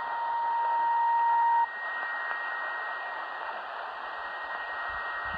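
Tecsun PL-600 shortwave receiver in single-sideband mode: a steady mid-pitched beep grows louder for about a second and a half and cuts off suddenly. After that comes even static hiss with a faint steady whistle, the pause between voice transmissions.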